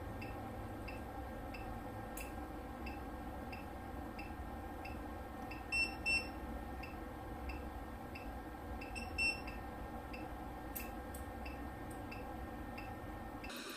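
PCT200i current-transformer test set running an automatic CT test: a steady electrical hum with faint short pips about twice a second, and three louder short beeps, two together about six seconds in and one about nine seconds in.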